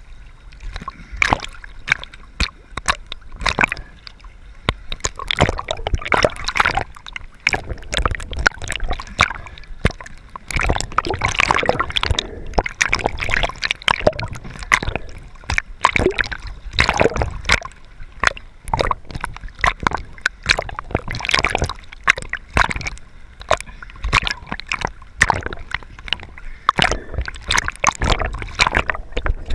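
Sea water splashing and sloshing against a handheld camera as it dips in and out of the surface with a swimming snorkeler: a dense, irregular run of short splashes.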